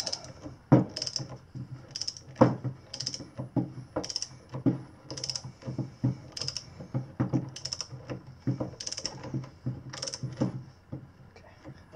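Ratchet wrench running down a bolt on a motorcycle rear-sprocket carrier, the pawl clicking in a short burst on each back-swing, about once a second. The clicking stops about a second before the end.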